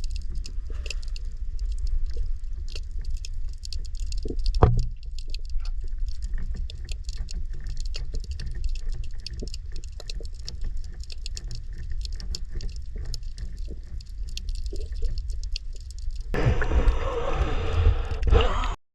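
Underwater sound picked up by a submerged action camera: a steady muffled rumble with constant fine crackling clicks and one knock about four seconds in. Near the end it turns to louder rushing, splashing water, then cuts off abruptly.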